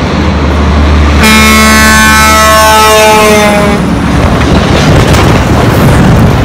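Truck air horn sounding for about two and a half seconds, starting about a second in, its several tones sliding slowly lower in pitch. Under it runs the deep rumble of the truck, and after the horn stops there is loud, even engine and road noise.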